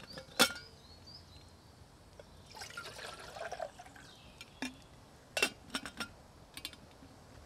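A sharp metal clink as a camping kettle's lid is opened, then water poured from a bottle into the kettle for about a second, followed by several quick metal clinks as the lid is put back on.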